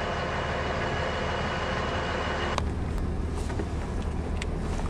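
Steady low rumble and hiss of a moving vehicle. About two and a half seconds in, the higher hiss drops away abruptly, and a few light clicks follow.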